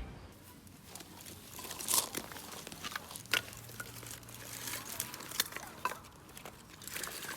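Scattered small clicks and crinkles, such as handling of packaging or utensils, with a sharper click about two seconds in.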